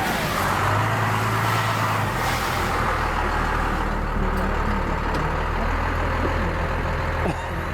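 Truck engine running steadily, with a rushing noise over it that fades after about two and a half seconds.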